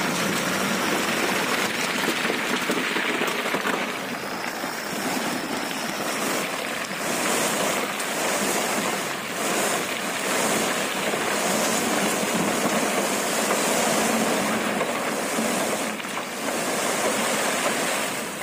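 Load of rocks and soil sliding out of a raised dump truck bed and pouring onto a pile: a steady rushing noise with no pauses.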